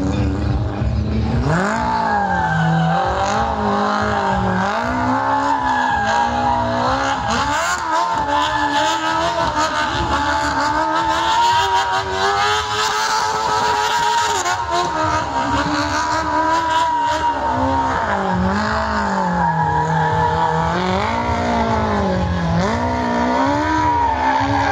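Small Smart car doing donuts: its engine revs up and down again and again while the rear tyres squeal steadily against the tarmac.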